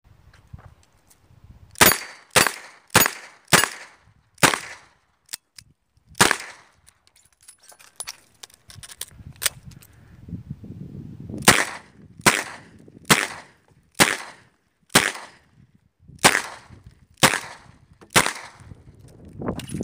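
Smith & Wesson 929 9mm revolver firing double action: a string of six shots, then after a pause of about five seconds, eight more shots about a second apart.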